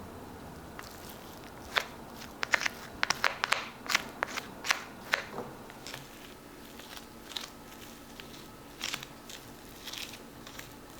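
Plastic freezer storage containers being handled: a quick run of sharp clicks and knocks for a few seconds, then sparser, softer clacks.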